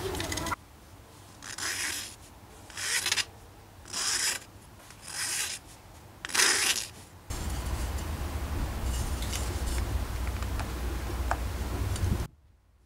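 Flat metal hand file rasping across the end of a thin wooden dowel in five short strokes, a little over a second apart. A steady low hum follows for about five seconds.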